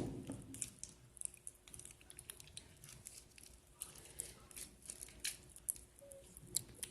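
Faint, irregular small clicks and crackles of clay slime being mixed and handled.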